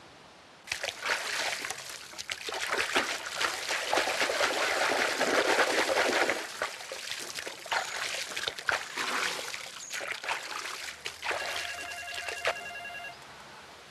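Water sloshing and splashing in a plastic paddling pool as someone bathes in it, loudest in the middle. Near the end, an electronic telephone ring of fast-repeating tones starts.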